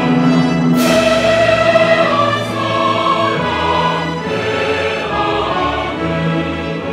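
Choral music: voices holding long chords, changing every few seconds.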